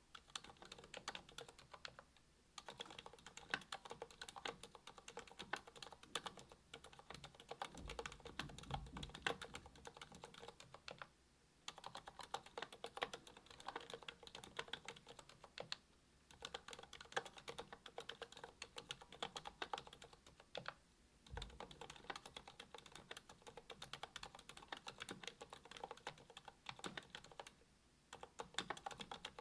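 Typing on a Monstargear Alu XO V2 aluminium keyboard with a brass plate, GMK Jamon keycaps and ZealPC Healios V2 silent linear switches (67 g). Rapid keystrokes come in runs broken by several short pauses, with two deeper thuds, one about eight seconds in and one about two-thirds of the way through.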